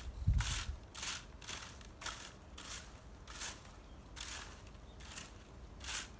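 A rhythmic series of short scraping strokes, about ten of them, roughly two a second.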